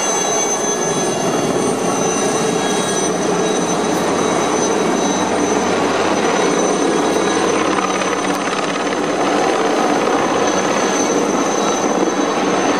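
Aérospatiale Lama turbine helicopter flying low and close, a steady high turbine whine over the constant rush of the rotor.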